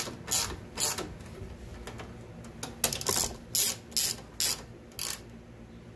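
Socket ratchet on an extension tightening a hood latch bolt, its pawl clicking in short bursts as the handle is swung back and forth: a run of strokes, a pause of about two seconds, then another run.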